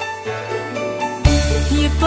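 Background music. A little over a second in, the full arrangement comes in louder, with a deep, steady bass under the melody.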